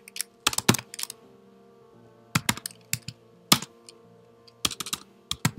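Typing on a computer keyboard: three short runs of keystrokes with pauses between them, over faint, steady background music.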